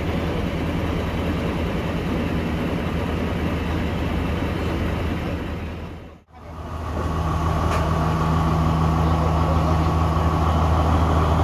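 Diesel train engine running steadily at idle, close by. It fades out briefly about six seconds in and comes back louder, now with a steady high whine over the low engine note.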